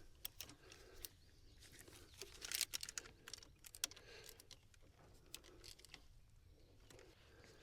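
Faint, scattered light clicks and taps of hand work: small metal parts and tools being handled while fitting a glow plug relay, with a few sharper clicks about two and a half to four seconds in.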